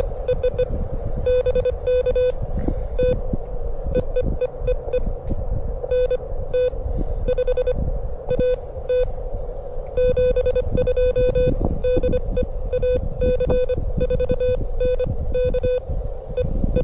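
Morse code from an amateur radio transceiver: one steady tone of about 500 Hz keyed in quick short and long beeps, sent at about 25 words per minute. Low wind rumble on the microphone runs underneath.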